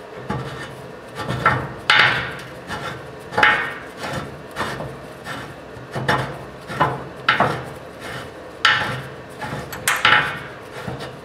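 Quick-attach wing clamp on a Western MVP3 plow being cranked tight by its handle: a rasping scrape with each turn, repeated roughly every second.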